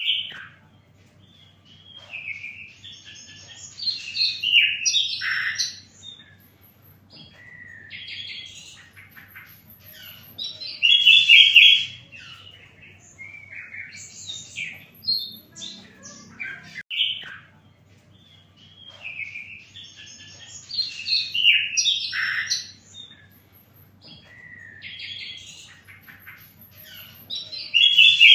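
Sikatan londo, a songbird kept by Indonesian bird keepers, singing. Its song comes as varied, high chirping phrases a second or two long, with short pauses between them.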